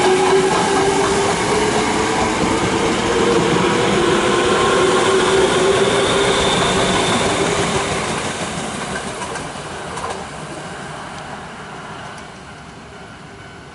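Osaka Metro electric train accelerating away from a station: its motors whine, the pitch slowly rising, over the running noise of the wheels. The sound fades steadily in the second half as the train draws away.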